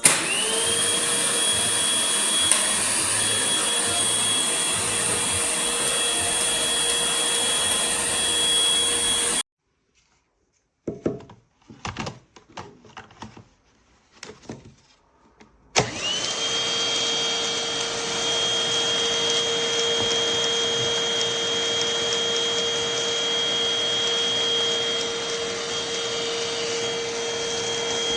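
Rowenta XPert 6.60 cordless stick vacuum's motor spinning up and running with a steady high whine. It cuts off about nine seconds in, and a few clicks and knocks of handling follow. About sixteen seconds in, the motor spins up again and runs on.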